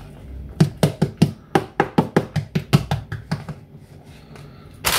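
Metal fork knocking against a plastic tub while mashing and mixing chickpeas, a quick run of about four or five clicks a second that stops about three and a half seconds in, with a louder knock right at the end.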